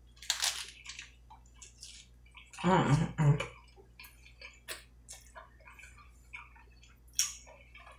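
A bite into a hard blue corn taco shell, then chewing with small crunches and wet mouth sounds. A brief voiced sound from the eater comes about three seconds in.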